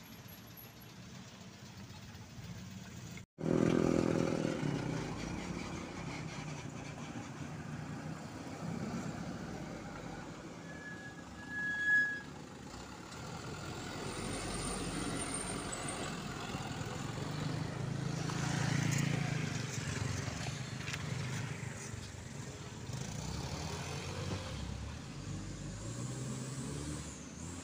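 Diesel engines of heavily loaded trucks running under load as they crawl past one after another, with a brief high squeal about twelve seconds in.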